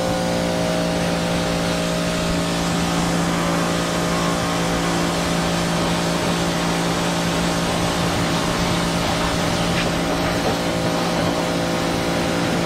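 Pressure washer running steadily, its motor giving a constant even hum under the dense hiss of the high-pressure water jet striking a mower's engine and deck.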